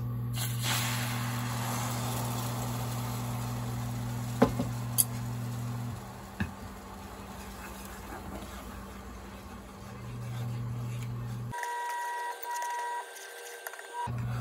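Beaten egg sizzling as it is poured into a hot frying pan, over the steady low hum of the cooktop. Chopsticks click against the pan a few times. Near the end come a couple of short electronic beeps.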